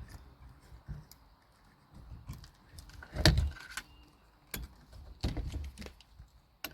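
Scattered clicks, knocks and short rattles of metal and plastic parts being handled while a garage door opener is taken apart, with the loudest clatter about three seconds in and more around five seconds in.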